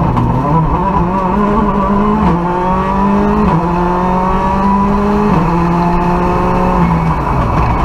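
Ford Fiesta R5 rally car's turbocharged 1.6-litre four-cylinder engine heard from inside the cockpit, climbing in pitch under acceleration with three quick upshifts a second or two apart. It then holds steady and eases off near the end.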